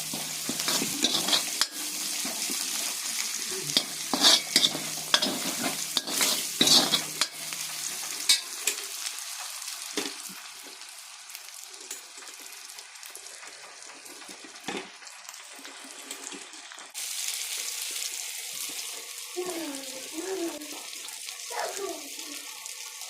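Food sizzling as it fries in a pan, with scraping and clicking strokes of a spoon stirring it through the first several seconds. The sizzle falls quieter midway and comes back louder about seventeen seconds in.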